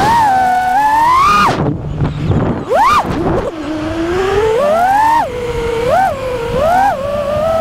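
FPV racing quadcopter's four T-Motor F60 Pro brushless motors and props whining, the pitch rising and falling with throttle. The whine climbs, cuts off abruptly about a second and a half in, and is quiet for about a second. A sharp punch comes near three seconds, then a long climb, a drop, two quick blips and a rise again near the end.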